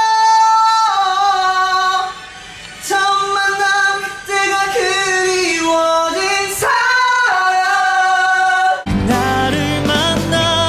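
A young man singing unaccompanied in a high tenor, belting and holding long high notes. About nine seconds in, it cuts suddenly to stage music with a full backing band and bass.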